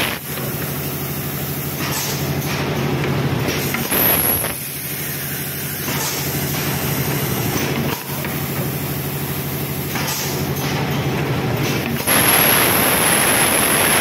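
Automatic PET bottle blow moulding machine running: a steady hum with sharp pneumatic clacks, and loud hisses of compressed air, one about four seconds in and a longer, louder one near the end.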